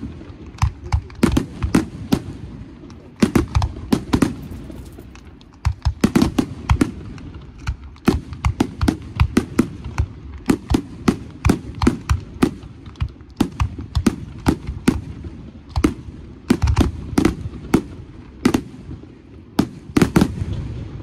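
Aerial firework shells bursting in a rapid, continuous barrage: loud sharp bangs, several a second, over a steady low rumble of overlapping reports.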